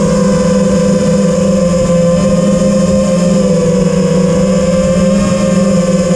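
FPV quadcopter's four brushless motors (T-Motor F40 III, 2600 Kv) and propellers whining at a low, steady throttle, the pitch wavering slightly, picked up by the onboard camera.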